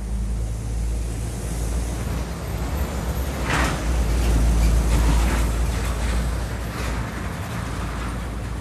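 Low, steady rumble of vehicle noise, swelling to its loudest in the middle, with a few short hisses over it.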